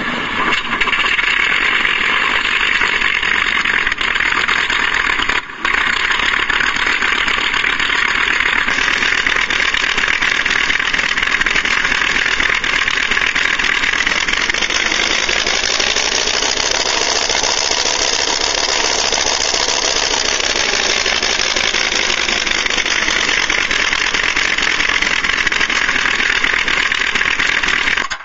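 Recorded WWII aircraft piston engine sound played from an RC model sound unit's speaker: a steady engine drone, thin in the bass, with a short dip about five seconds in and a brighter tone past the middle.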